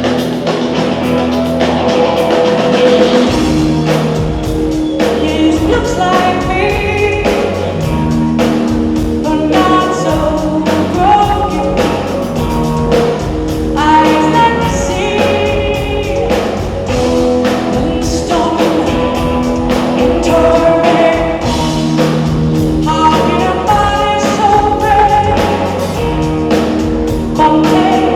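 Live band performance of an electronic rock song with a woman singing the lead vocal over a steady beat, bass and synths.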